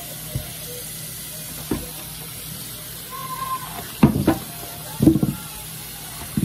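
Kitchen tap running steadily as raw chicken is rinsed and handled in the sink, with a few knocks and clatters, the loudest clusters about four and five seconds in.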